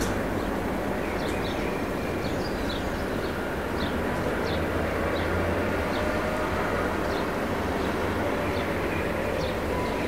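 Small-town summer ambience: a steady low rumble of distant traffic, with birds chirping in short, high notes about once or twice a second.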